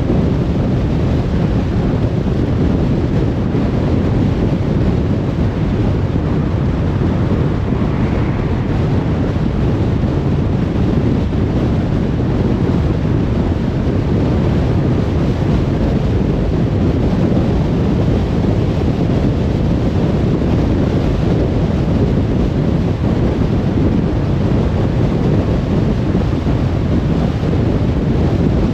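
Steady road noise of a car cruising on a motorway: an even, deep rumble of tyres and wind that does not change.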